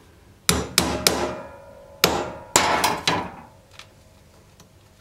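A hammer striking a pricking iron to punch stitch holes through leather for a scabbard: about six sharp blows in two quick sets of three, each with a brief metallic ring.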